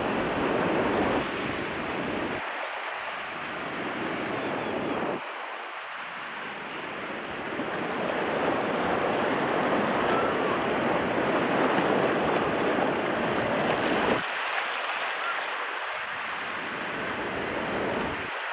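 Sea surf washing against a rocky shore, a steady hiss that swells and eases, with gusts of wind rumbling on the microphone.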